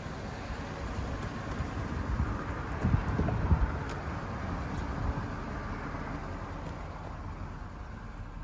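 2011 GMC Sierra pickup's engine idling steadily, with a few dull thumps about three seconds in.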